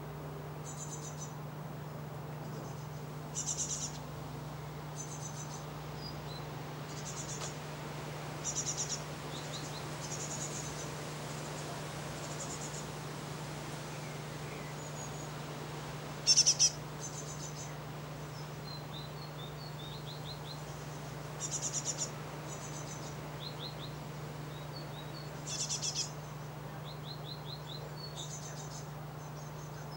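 Great tit calls: short bursts of rapid, high twittering notes every few seconds, the loudest about halfway through, with softer single chirps in between, over a steady low hum.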